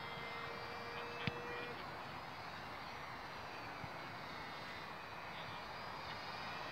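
Faint high whine of the HobbyZone DeltaRay's twin brushed electric motors and propellers as the RC delta-wing plane flies at a distance, over a steady outdoor noise. A single short click sounds a little over a second in.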